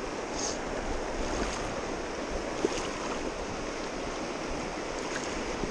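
Shallow river running steadily over rocks in a riffle, with one faint sharp tick partway through.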